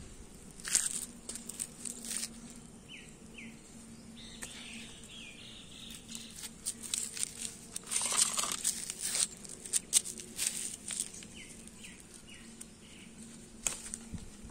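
Irregular rustling and clicking from a hand and phone moving through the leaves of a potted brinjal plant, loudest about eight seconds in. Two runs of short, falling bird chirps come about three seconds in and again near the end.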